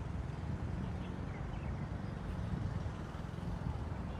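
Steady low outdoor rumble with a few faint high chirps.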